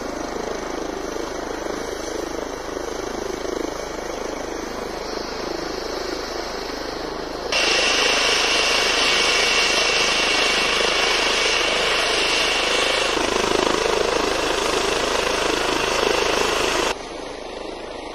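Ambulance helicopter running on a snowfield: steady rotor and turbine noise. It is much louder in a stretch through the middle, with a high whine over it.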